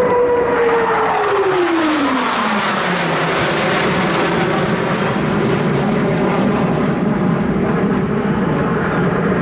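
F/A-18 Hornet jet flying past: its engine whine drops sharply in pitch over about two seconds as it goes by, then turns into a steady loud jet roar.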